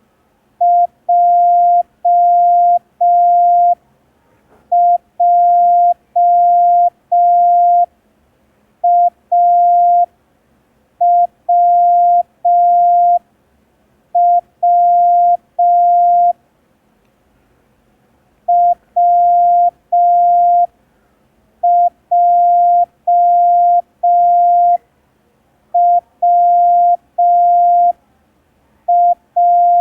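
Morse code practice tone: a single steady beep keyed on and off in dots and dashes, sent in five-letter groups made of the letters A, J and W, with about a second's pause between groups.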